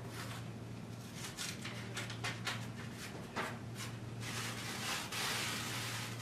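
Plain-paper sublimation transfer sheet being peeled off a polyester shirt: a run of short paper crackles and crinkles, then a longer continuous rustle about four seconds in as the sheet comes away, over a steady low hum.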